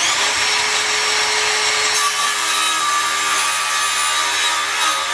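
DeWalt cordless circular saw running at full speed and cutting through a short piece of baseboard trim: a steady motor whine over the noise of the blade in the wood.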